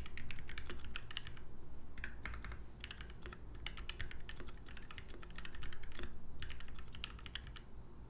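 Typing on a KBD67 MKII mechanical keyboard with a polycarbonate case, brass plate, lubed Gateron Ink Black linear switches and GMK keycaps: fast runs of key clacks broken by short pauses, with the stabilized keys' longer thocks among them. The switches are ones the owner finds mostly scratchy and not yet broken in.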